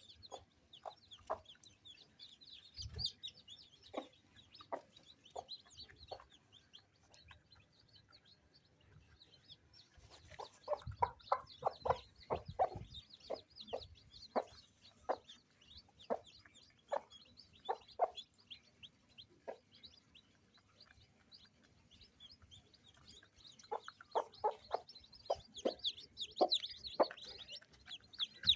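Broody hen clucking to her chicks in short repeated calls, coming in runs that are thickest about ten seconds in and again near the end, over the brood's continuous high, thin peeping.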